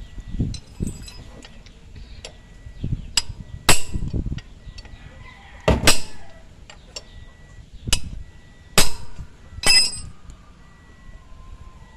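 Sharp metallic clinks and knocks of a hand tool against the magnetic clutch plate and centre bolt of a 2017 Toyota Vios's air-conditioning compressor. There are about seven, spaced irregularly, the loudest a little under 4 s in and near 9 s.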